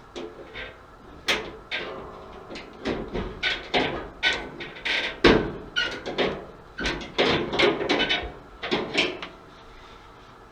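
Sheet-metal cabinet panels of an old Kenmore electric dryer being worked loose from their clips: an irregular run of knocks, clicks and metal rattles, the loudest about five seconds in, dying away about a second before the end.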